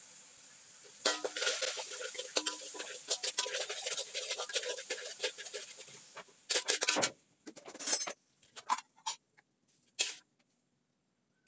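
Chopped garlic and chili sizzling in hot oil in a wok while a metal spatula stirs and scrapes it, giving a dense crackle for several seconds. The sizzle dies away about two-thirds of the way through, leaving a few separate scrapes and knocks of the spatula on the wok.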